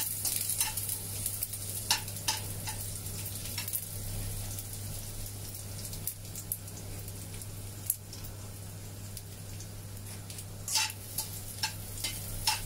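Minced garlic and soaked dried shrimp sizzling steadily in hot oil in a honeycomb-textured wok. A slotted spatula scrapes and taps the pan now and then, more busily near the end.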